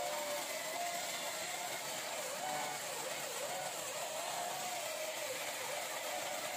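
Table saw running under load while ripping a square wooden beam, a steady hiss of cutting with the motor's hum wavering slightly up and down in pitch as the wood is fed.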